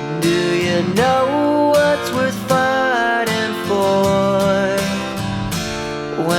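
Background music: a song with strummed acoustic guitar and a sung melody.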